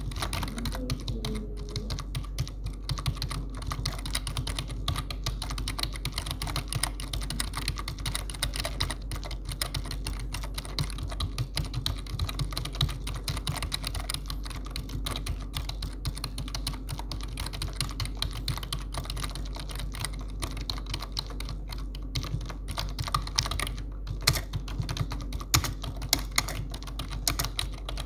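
Continuous fast typing on a computer keyboard: a dense, uneven stream of key clicks with no real pause. A few sharper, louder key strikes come in the last few seconds. A steady low hum runs underneath.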